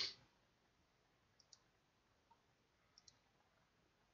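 Near silence broken by two faint pairs of computer mouse clicks, about a second and a half in and again about three seconds in, with a brief louder puff of noise right at the start.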